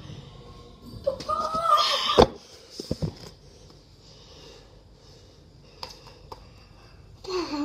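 A child's wordless vocal sound effect about a second in, cut off by a sharp knock. A few quiet clicks and knocks follow. Near the end comes another wordless cry that falls in pitch.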